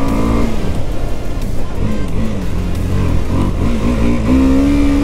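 KTM Duke's single-cylinder engine running on the move at about 60 km/h, its pitch rising and falling with the throttle, under heavy wind rush on the camera microphone.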